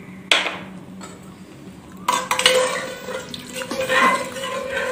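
A ladle stirring salted water in a pressure cooker pot, scraping and clinking against the pot's side, after a single sharp knock about a third of a second in.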